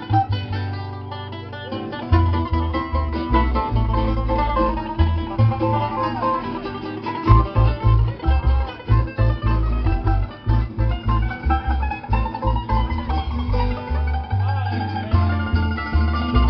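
Live acoustic string band playing, with acoustic guitar, banjo and a plucked upright bass giving a steady low pulse under the picked notes.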